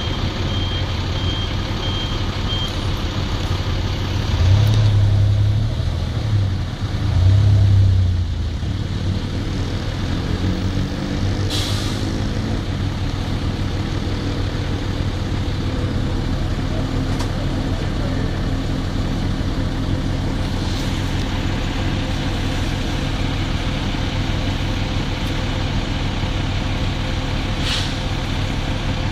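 Fire engine aerial ladder truck's diesel engine running steadily while the ladder's hydraulics are worked, with a series of short warning beeps at the start. The engine revs up twice, about five and seven seconds in, and a few short sharp clicks or hisses come later.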